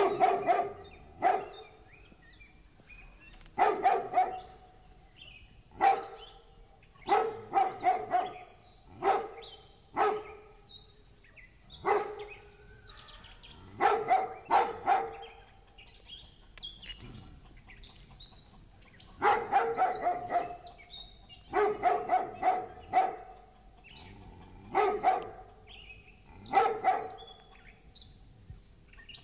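Large dog barking, single barks and quick runs of two to four, in irregular bouts with short pauses between.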